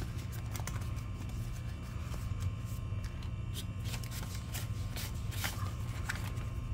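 Paper banknotes rustling and sliding as they are tucked into a clear plastic envelope in a ring binder, and a binder page is turned; light, scattered rustles and crinkles over a steady low hum.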